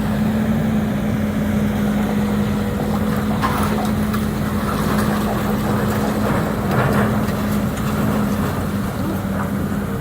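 Demolition excavator's diesel engine running steadily, with scattered rattles and crunches of debris in the middle of the stretch.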